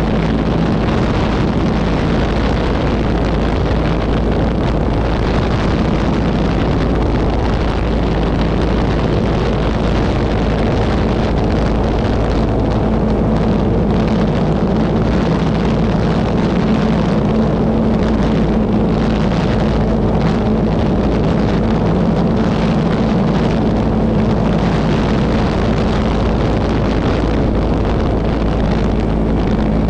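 Model airplane motor and propeller running steadily at cruise, heard from a camera mounted on the plane, with wind rushing over the microphone.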